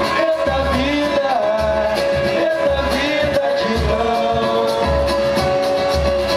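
Live samba band playing with a singer. A deep drum beat pulses about once a second under a long held vocal note.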